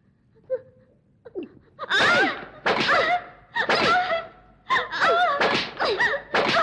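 A person cries out loudly again and again, about six pained cries each falling in pitch at the end, while being beaten with a stick. Two short knocks come before the cries, about half a second and just over a second in.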